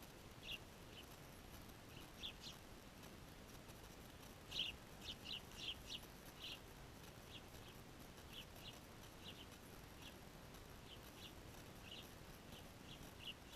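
Small birds chirping: short high chirps repeated irregularly, with a quick run of louder ones about five seconds in, over a faint outdoor hiss.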